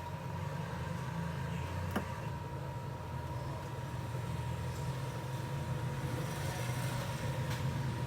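Steady low machine hum with a thin, steady high tone above it, and a single click about two seconds in.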